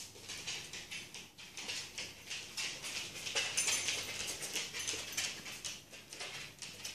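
A whippet's and a Sealyham terrier's claws clicking and pattering on a wooden floor as the two dogs move about together: a rapid, uneven run of light clicks.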